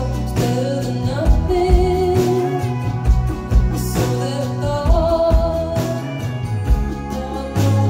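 Live band music: a woman singing long, wavering notes over strummed acoustic guitar, bass and drums, with regular drum hits.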